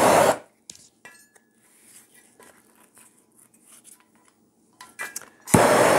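Handheld gas torch flame hissing loudly, cutting off shortly after the start and lighting again near the end, as it melts the frayed ends of nylon scuba webbing to seal them. Faint clicks of handling in between.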